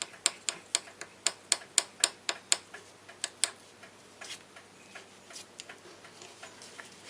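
Sharp, evenly spaced ticks, about four a second, that stop about two and a half seconds in; after two more ticks only a few faint scattered clicks remain.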